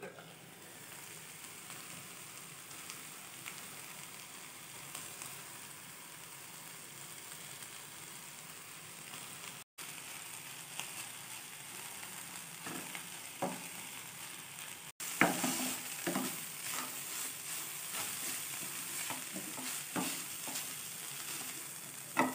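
Flat beans sizzling in a pan while a wooden spatula stirs them: a steady hiss, with scraping knocks of the spatula against the pan that come more often and louder in the second half.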